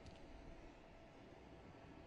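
Near silence: faint steady background noise with no distinct sound event.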